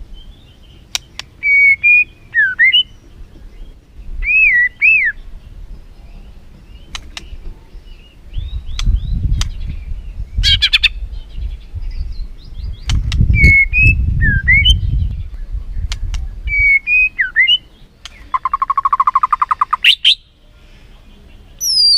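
White-rumped shama singing: repeated whistled phrases that sweep up and down in pitch, broken by sharp clicks, with a fast buzzy rattle near the end.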